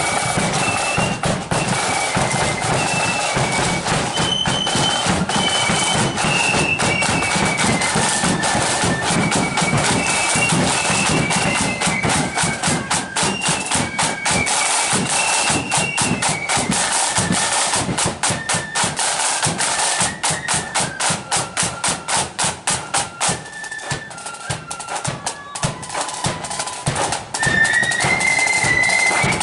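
Marching flute band playing on parade: flutes carry a high melody over rapid snare drumming and bass drum beats. In the latter half the melody thins and the drums come to the fore, then the flutes rise again near the end.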